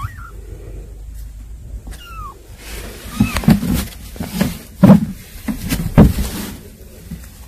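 Kittens mewing: three short, thin mews, one at the start, one about two seconds in and one about three seconds in. Then a run of loud bumps and knocks from about three to six and a half seconds, strongest near five and six seconds, as a hand reaches in among the cardboard boxes.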